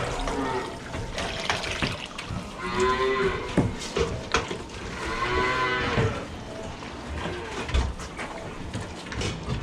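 Cattle mooing: two long, drawn-out moos about three and five seconds in, with scattered knocks between them.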